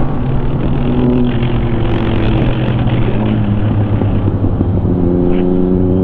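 Yamaha XSR900's three-cylinder engine running under way, heard over rushing wind noise; the engine note shifts a couple of times, around two and a half seconds in and again near five seconds.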